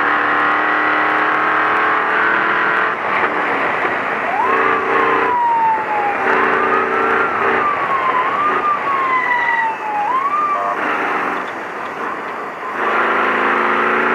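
V8 engine of a Ford Ranger desert race truck running hard under a heavy din of road and wind noise. Through the middle its pitch repeatedly jumps up and then sags back down as the revs change.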